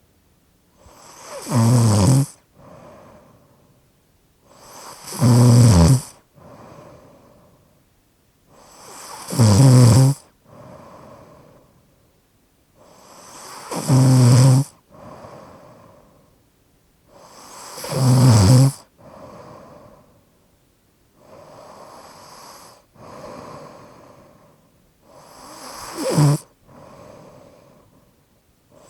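A person snoring, slightly obstructive: a loud, low snore about every four seconds with quieter breaths between. Past the middle the snores give way to a few soft breaths for several seconds, then one shorter snore comes near the end.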